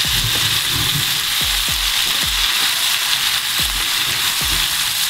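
Courgette, bell pepper and onion sizzling in hot oil in a frying pan while a wooden spatula stirs them, with a series of soft low knocks and scrapes of the spatula against the pan.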